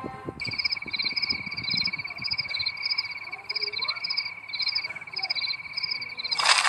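Night-time chorus of crickets and frogs: a steady high trill with repeated paired chirps above it, about two a second, coming in about half a second in. A loud burst of broad noise cuts in just before the end.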